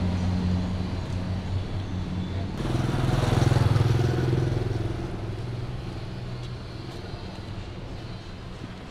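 Street traffic: an engine hums steadily, then a motor vehicle passes close about three seconds in, loudest about a second later and fading away over the next few seconds.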